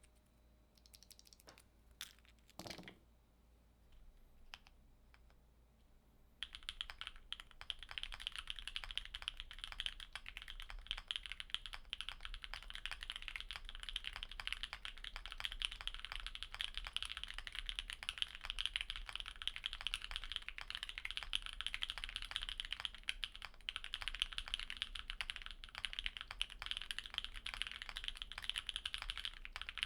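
Custom Sneakbox AVA mechanical keyboard with lubed, filmed Autumn Rain ('Speechless') switches on an aluminium plate and GMK keycaps: a few scattered clicks, then about six seconds in, steady fast typing.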